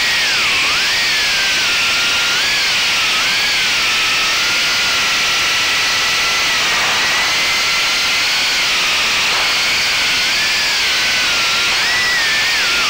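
Small quadcopter motors (1407 3400kv) spinning HQProp 3x3x8 three-blade props, a whine over a steady hiss. The pitch wavers up and down with the throttle, rising and dipping sharply near the end.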